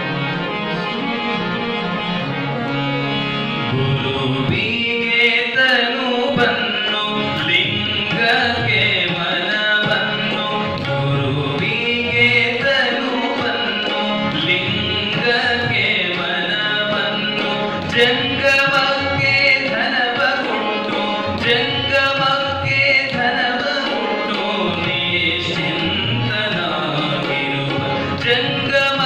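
A man singing a Kannada vachana (devotional song) to harmonium accompaniment, with tabla joining in about four seconds in.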